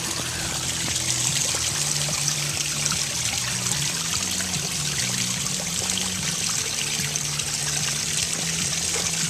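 Water trickling and splashing steadily over the rocks of a garden pond waterfall.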